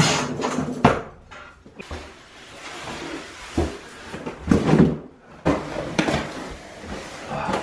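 Heavy flat-packed cardboard cartons of a storage rack being hauled and laid down on the floor: cardboard scraping and sliding, with several dull knocks as the boxes are set down.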